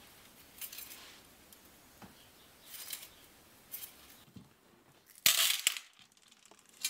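A bundle of used steel bicycle spokes handled, with faint metallic clinks and rustles, then a louder short clatter a little over five seconds in.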